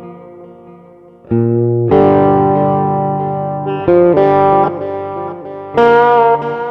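Background music: electric guitar chords, played with distortion, each struck and left to ring.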